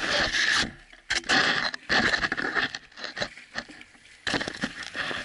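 Uneven bursts of scraping, rattling and spattering noise right on an action camera's microphone, broken by short quiet gaps. The mud-splashed camera is being knocked about or handled.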